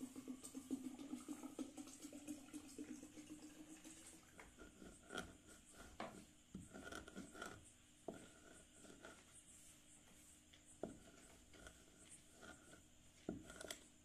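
Faint rubbing and scratching of a hand sweeping through crushed white chalk powder on a hard surface for the first few seconds, then a few scattered soft clicks and scrapes.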